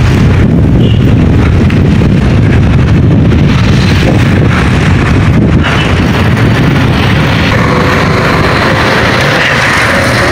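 Wind rumbling steadily on the microphone of a camera held out from a moving bicycle, loud and low, easing a little near the end as the bike slows.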